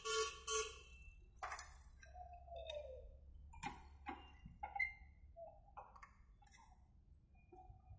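Scattered light metallic clinks and taps as a screwdriver is worked against a front disc brake caliper and pad, levering the caliper piston back in to make room for new brake pads.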